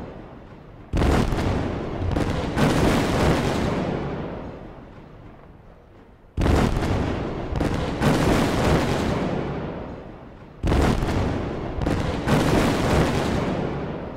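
Aerial fireworks shells bursting: three clusters of sharp booms about five seconds apart, each cluster of two or three bangs trailing off in a long, echoing rumble.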